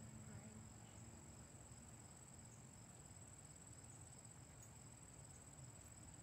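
Near silence, with a faint, steady, high-pitched insect trill in the background.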